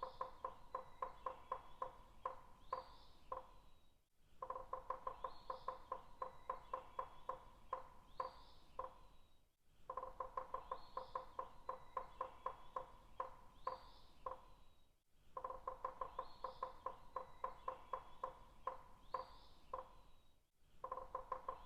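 Woodpecker tapping on wood, an even run of hollow, ringing knocks at about five or six a second, with another bird's short chirps above it. The same few seconds of tapping repeat about every five and a half seconds, each time after a short break.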